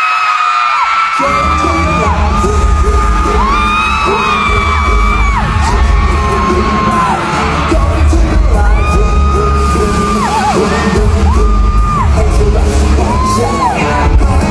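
Live concert music with singing, a heavy bass beat coming in about a second in, and a crowd of fans screaming and whooping over it.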